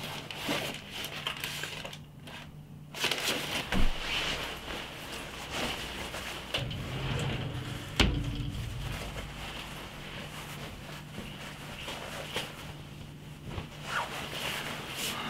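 Rustling and crinkling of a jacket being pulled on and its collar adjusted, with scattered small clicks and a couple of sharper knocks about four and eight seconds in, over a steady low hum.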